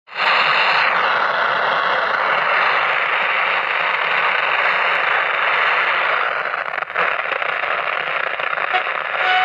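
Transistor radio's loudspeaker hissing with steady static, no station tuned in, with a brief whistle about a second in.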